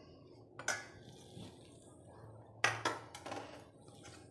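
Steel spoon scraping and clinking against stainless-steel bowls while scooping dry gram flour: one short scrape about half a second in and a few more clinks and scrapes around three seconds in, otherwise quiet.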